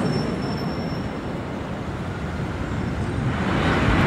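Jet airliner flying low overhead, a loud continuous roar of its engines that swells again near the end.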